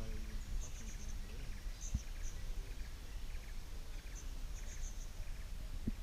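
Jungle river ambience: three short runs of rapid, high chirps from wildlife over a steady low wind rumble on the microphone. Dull knocks sound about two seconds in and again near the end.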